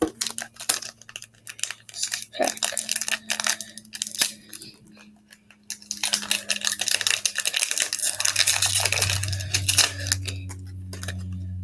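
A foil Match Attax card pack being torn open and its wrapper crinkled, in crackly bursts at first, then a denser stretch of steady crinkling over the second half. A low hum comes in about two-thirds of the way through.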